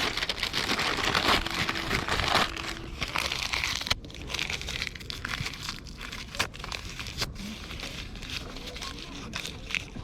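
Dry tinder and twigs crinkling and crackling. A dense rustle runs for the first three seconds or so, then gives way to scattered sharp snaps.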